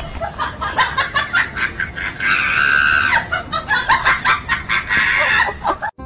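Chicken clucking rapidly in quick bursts, with one long drawn-out squawk a couple of seconds in; it stops abruptly just before the end.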